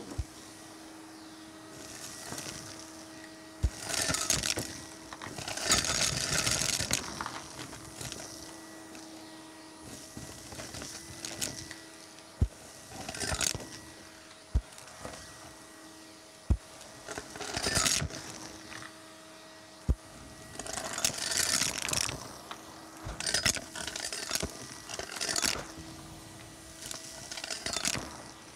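Vacuum cleaner running with a steady motor hum while its floor tool sucks up fluff and loose coins from a carpet. Bursts of rattling hiss come as debris is drawn up the hose, with a few sharp clicks.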